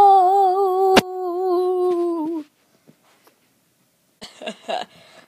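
A person's drawn-out, wavering cry of "Nooo", held at one pitch and sagging at the end before cutting off about two and a half seconds in, with a sharp click about a second in. After a pause there are a few brief, soft vocal sounds near the end.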